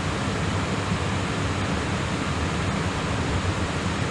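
Steady rushing noise with a low hum: a Boeing jet airliner's engines idling and its air system, heard from inside the aircraft on the ground.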